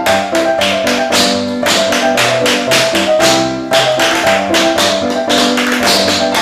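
Tap shoes striking a wooden chipboard floor in quick, even rhythms, two tap routines layered with the second group starting on the fourth beat (sound stacking), over backing music with a bass line.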